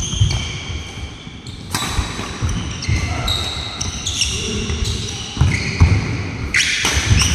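Badminton doubles rally: rackets striking a nylon shuttlecock with sharp cracks, shoes squeaking on the wooden court and feet thudding as players lunge and move.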